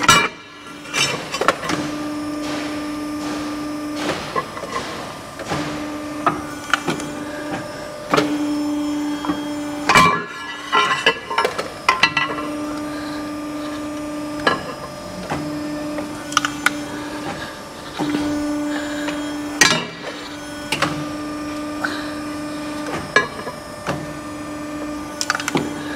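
Geka 80-tonne hydraulic steelworker punching holes in steel plate. The machine's steady hum starts and stops over and over in stretches of one to three seconds, between clunks and metallic knocks from the punch strokes and the plate being moved. The sharpest knocks come about ten seconds in and again near twenty seconds.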